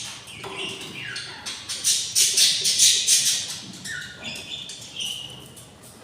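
Budgerigar chicks giving raspy, high begging calls, a dense chorus with a few short falling notes, loudest about two to three seconds in: the chicks are hungry.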